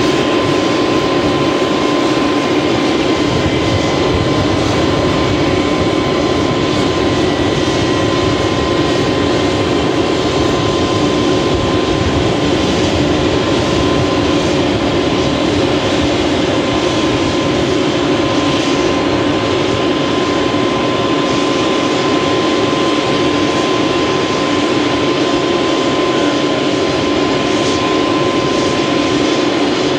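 Airbus A320 jet engines running during the landing, a loud, steady rush with a steady whine through it.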